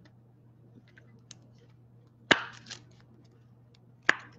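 Trading cards and their plastic holders being handled on a table: two sharp clacks about two seconds apart, with a few faint ticks, over a faint steady hum.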